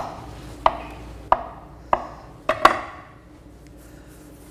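Chef's knife cutting a roll of potato dough into small pieces on a wooden board: about six sharp knocks of the blade striking the board, roughly one every half second, stopping about three seconds in.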